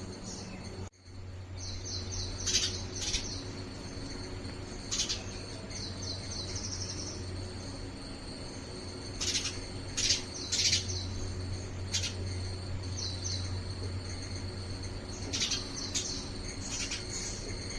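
House sparrow chirping: runs of quick, high chirps, with louder sharp chirps breaking in every second or two.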